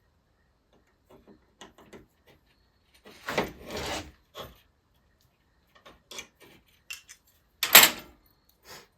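Hand tools clicking and clattering as the nuts on a throttle-cable bracket are done up with a 10 mm wrench, with a louder scraping rattle about three seconds in and a sharp clack near the end.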